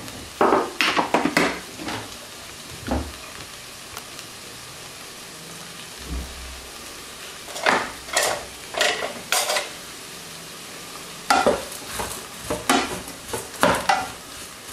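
Onion and eggplant sizzling steadily in vegetable oil in an electric multicooker's bowl. Clusters of scraping and knocking come from a wooden spatula stirring them, near the start, in the middle and near the end.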